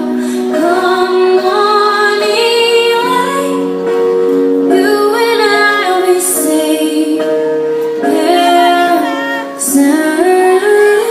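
Recorded slow ballad playing: a woman's voice sings a gentle melody with long held notes over soft, sustained accompaniment.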